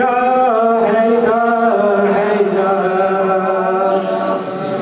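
A man singing devotional verses into a microphone in long, held, gently wavering notes, breaking off briefly near the end.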